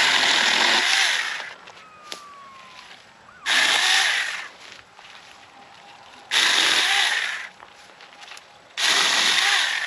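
Saker mini electric chainsaw, a small battery-powered saw, cutting pine branches in four short bursts of about a second each. Each burst starts suddenly and fades as the chain winds down.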